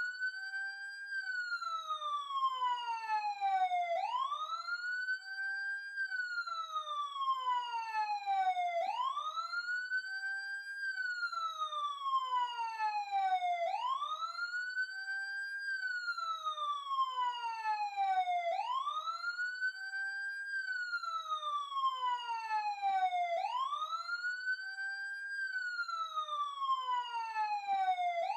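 Police siren on a slow wail. The pitch sweeps up quickly, holds for a moment, then glides slowly back down, and the cycle repeats evenly about every five seconds.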